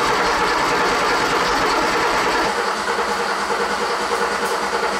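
Starter cranking the Porsche 911's 3.2-litre air-cooled flat-six over without it firing, fuel pump and ignition disconnected so only oil pressure is built. The cranking has a lumpiness to it whose cause is unclear.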